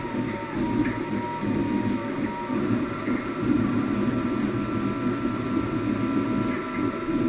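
3D printer running: a steady hum with thin whining tones from the stepper motors that change pitch as the moves change, a new higher whine coming in about five seconds in.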